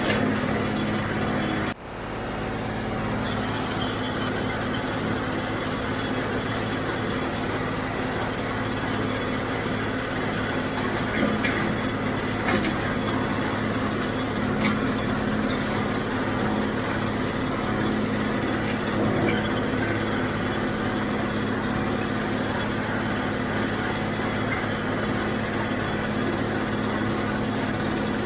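A John Deere 5055D diesel tractor runs steadily under load, driving a John Deere 348 square baler. The sound drops out briefly about two seconds in, and there are a few sharp knocks around the middle.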